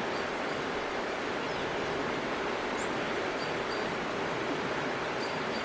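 Steady rushing of flowing river water, an even hiss that does not change, with a few faint high chirps over it.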